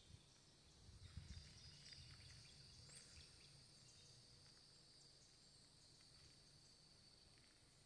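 Near silence: faint woodland ambience with a steady high insect drone, a few faint bird chirps, and a brief low rumble of wind or handling on the microphone about a second in.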